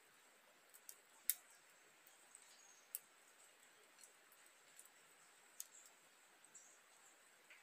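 Near silence broken by a few faint, sharp clicks and clinks of metal cookware being handled, the loudest about a second in and others near three and five and a half seconds. A faint steady high-pitched tone runs underneath.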